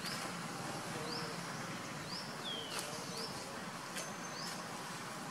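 Outdoor natural ambience with a steady background hiss. A small animal, bird or insect, gives a short high rising chirp about once a second, and one longer falling call comes near the middle.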